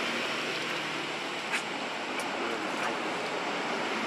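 Steady rushing outdoor noise with no clear pitch, with two faint clicks about a second and a half and two seconds in.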